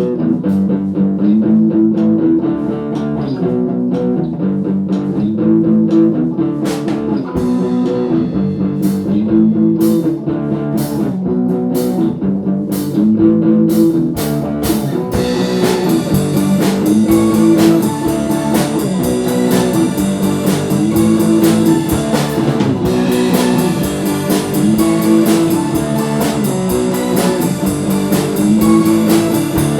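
Live band music without words: a low, repeating guitar figure with sparse drum hits, joined about halfway through by the full drum kit with cymbals.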